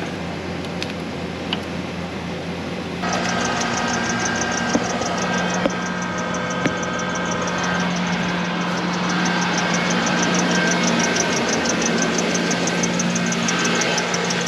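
A car engine running steadily. About three seconds in it gets louder and a fast, even ticking of about five a second comes in.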